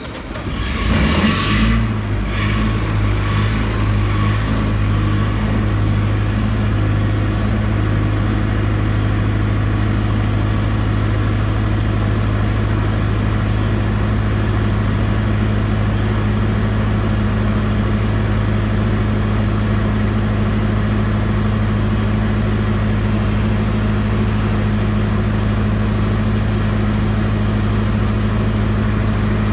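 Perkins diesel engine of a 20 kW generator set starting up: a brief louder burst as it catches in the first couple of seconds, then a steady, even drone as it runs at constant speed through its post-start warm-up.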